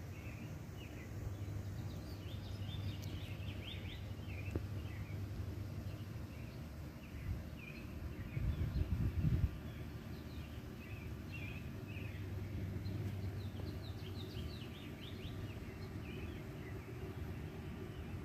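Small birds chirping in short, repeated calls throughout, over a low rumble on the microphone that is loudest about eight to nine seconds in.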